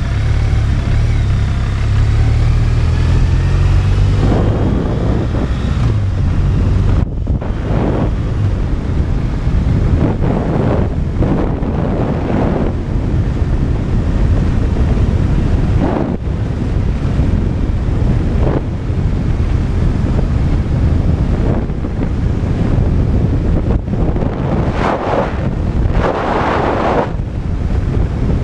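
Wind buffeting a helmet-mounted camera microphone while riding a BMW R 1200 RT motorcycle. The flat-twin engine's note is plain in the first few seconds, rising as the bike accelerates, then the wind noise mostly covers it, surging and easing.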